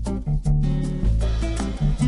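Background music: an upbeat instrumental track with plucked guitar over a steady bass line.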